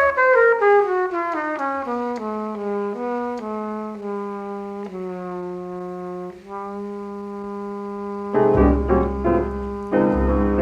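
Jazz trumpet playing alone: a quick run of notes falling in pitch, then a few longer held notes. Piano and bass come in with it about eight seconds in.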